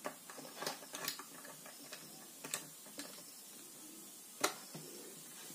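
Faint, scattered clicks and taps of a small screwdriver and wire ends against the terminal screws of a switch board, about six in all, the loudest about four and a half seconds in.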